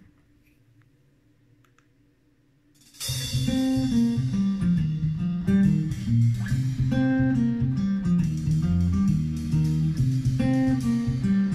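Near silence, then guitar music with a bass line starts suddenly about three seconds in, played through Mirage M-490is floor-standing loudspeakers and heard in the room.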